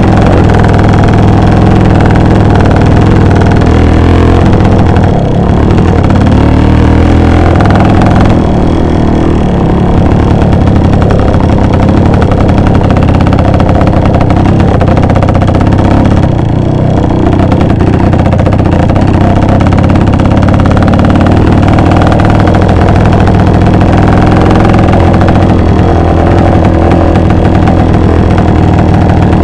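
Two-stroke engine of a Voskhod-based motorcycle running hard under throttle, easing off briefly three times.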